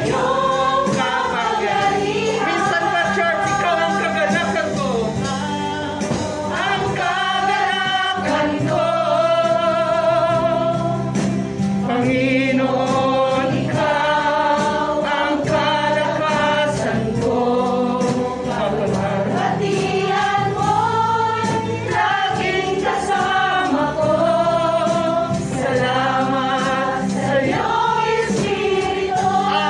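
Gospel worship song: a group of voices singing a melody over steady instrumental accompaniment.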